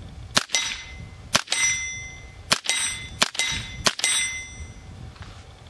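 Five .22LR shots from a Smith & Wesson M&P Sport AR-15 running a CMMG .22LR conversion kit, in an irregular string over about three and a half seconds. Each crack is followed a split second later by the clang of the bullet hitting a steel plate target, which rings on briefly.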